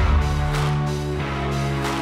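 Background music: a held bass note under a sustained chord.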